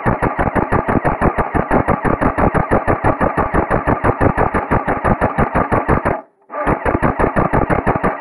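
Airsoft electric rifle firing on full auto: a long stream of rapid, evenly spaced shots that breaks off briefly about six seconds in and then starts again. The sound is muffled, with no high end.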